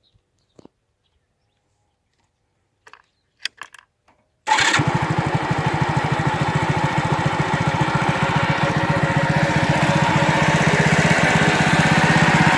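A few faint clicks, then the Alpha moped's small single-cylinder four-stroke engine starts about four and a half seconds in and runs steadily, getting gradually a little louder.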